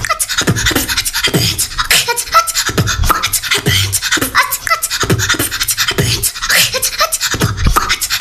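A young girl beatboxing a steady beat with her mouth: low kick thumps about twice a second under quick clicks and hissing snare sounds, with short pitched vocal sounds woven in. It is her ninth sound layered together with the earlier ones into one beat.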